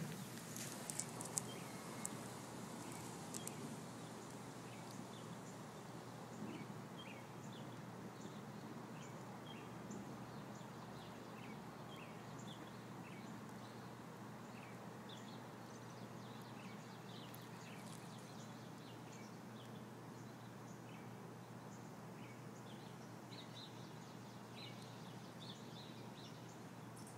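Faint steady outdoor background noise with scattered short bird chirps throughout. A few sharp clicks a second or two in.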